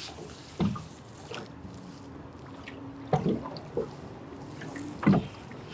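Water lapping and trickling against a small fishing boat's hull, with a faint steady hum through the middle and a few brief low knocks.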